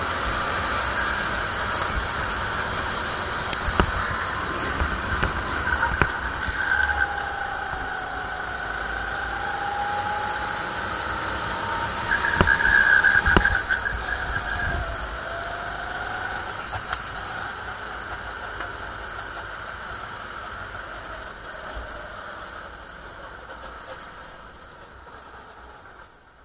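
Onboard sound of a 270cc rental kart's engine running at speed, its pitch rising and falling through the corners, with a few sharp knocks. Over the last ten seconds or so it gradually quietens as the kart slows.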